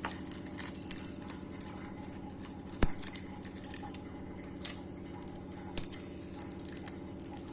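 Dried bay leaves crackling and snapping as they are broken into small pieces by hand: a few sharp snaps, the loudest nearly three seconds in, over a steady low hum.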